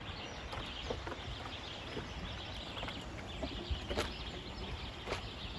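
Outdoor ambience: scattered bird chirps over a steady low rumble, with two sharp clicks about four and five seconds in.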